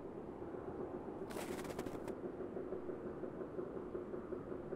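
A zipper on a camping backpack being pulled open in one quick stroke, a rapid run of fine clicks lasting under a second, about a second and a half in. A steady low background rumble continues underneath.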